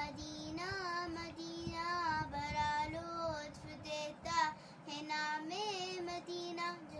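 A young girl singing an Urdu naat solo, with no accompaniment, drawing out long notes that bend up and down. The phrase ends near the end.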